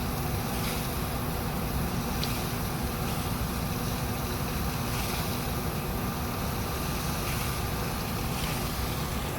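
Well-drilling rig's engine running steadily under load, a dense low, even machine noise with no change in pace.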